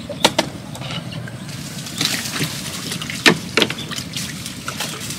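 Water splashing and trickling, with a few short sharp splashes near the start and again a little past three seconds in.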